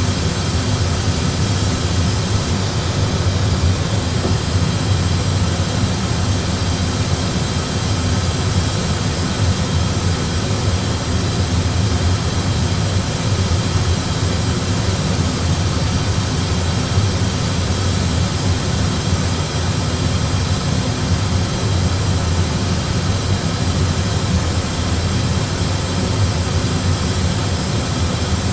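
Steady Airbus A320 flight-deck noise in flight: a constant low rumble and rush of air and engines, unchanging throughout.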